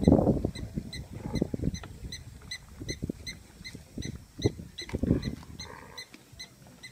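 A pack of African wild dogs feeding on a kill: irregular low scuffling and tearing noises, loudest at the very start and again near the middle, over a faint steady high chirp repeating about three times a second.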